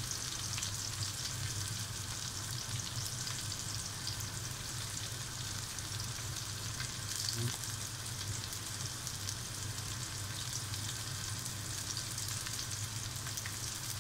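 Chopped garlic, sliced shallots and ginger sizzling steadily in hot oil in an aluminium pot as the aromatics are sautéed golden brown, with a metal spoon stirring now and then, over a low steady hum.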